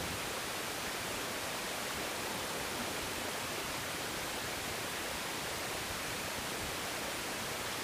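Steady, even wash of sea surf breaking among the concrete tetrapods of a breakwater.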